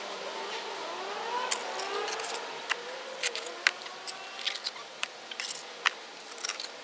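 A steel brick trowel cutting away the excess mortar squeezed out under a freshly laid brick. The blade scrapes and clicks against the brick and the board in a run of short, sharp ticks and scrapes, several a second.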